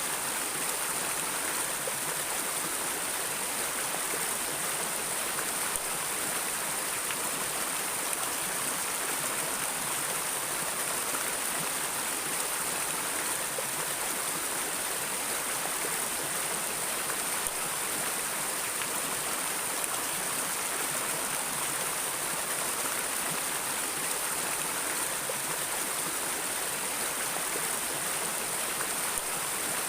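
Water in a river or stream flowing steadily, an even rushing hiss with no breaks.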